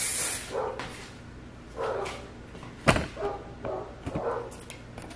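A dog barking in short, repeated barks, about five in a few seconds. A brief hiss comes at the very start, and a sharp knock, the loudest sound, comes about three seconds in.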